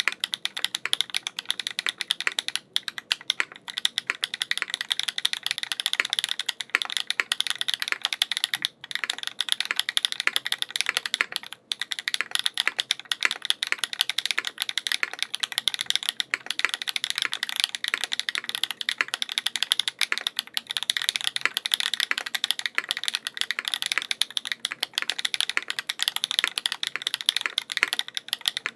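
Continuous fast typing on a mechanical keyboard with Feker White Marble linear switches, relubed with 205g0 and fitted with POM switch films, mounted on an aluminium plate with no foam under GMK keycaps. The keystrokes run in a dense clatter with a few short pauses.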